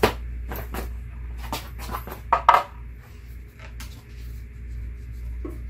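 Sharp knocks and clatter of a Dobsonian telescope base and its laminated setting circle being handled and set on a concrete floor. The knocks come irregularly, the loudest pair about two and a half seconds in, over a steady low hum.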